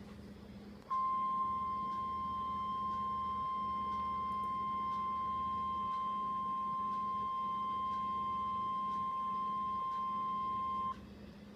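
NOAA Weather Radio's 1050 Hz warning alarm tone: one steady, unbroken beep that starts about a second in, holds for about ten seconds and cuts off sharply. It is the signal that a warning broadcast is about to follow and sets off alert-enabled weather radios. Under it is a faint steady hum and hiss from the radio reception.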